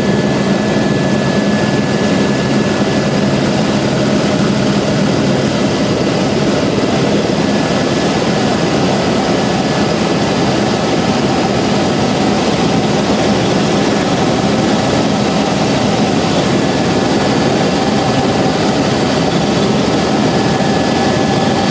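Airbus H125 (AS350 B3e) helicopter in flight: its turboshaft engine and rotors making a loud, steady drone with a thin, steady high whine over it.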